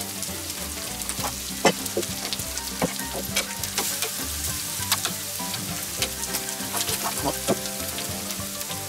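Turkey steaks sizzling on a grate over hot charcoal, a steady hiss, with metal tongs clicking against the grate a dozen or so times as the steaks are moved around.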